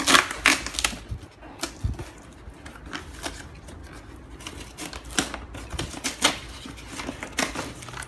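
Cardboard toy box being torn open by hand: a string of sharp, irregular tearing and clicking noises, loudest in the first second, with a second cluster a few seconds later.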